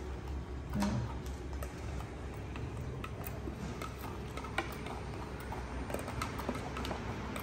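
Omega slow juicer running with a steady low hum and irregular clicks and crackles as grated carrot is fed down the chute and crushed by its auger.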